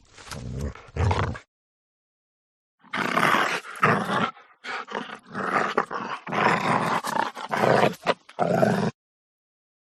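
A dog growling in short bursts, then a pause of about a second and a half. Then a longer run of fierce, rough growls and snarls lasting about six seconds, which stops before the end.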